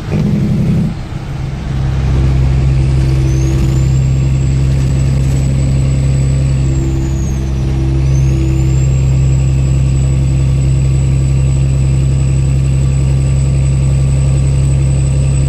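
Kenworth W900L semi truck's diesel engine running on the road. The note wavers and dips about a second in, then settles into a loud, steady low drone. A thin high whine rises in a few seconds later and dips briefly midway.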